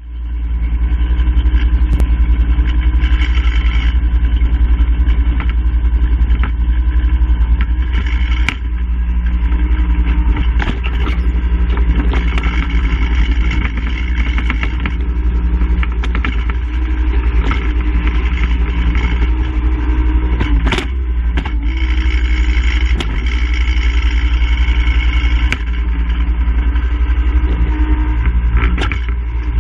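An engine running steadily, with several sharp clanks over it.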